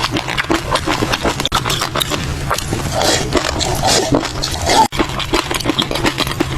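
Close-miked eating of caviar: a dense, continuous run of wet clicks and crackles from chewing the fish roe.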